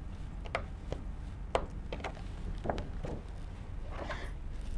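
Steady low room hum with a few faint, sharp clicks and taps, and a light rustle near the end, from a picture card being handled and taken off a whiteboard.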